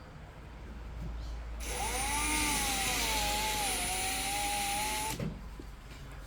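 Power drill-driver running for about three and a half seconds, starting about a second and a half in, with a whine that dips and wavers in pitch as it drives a screw.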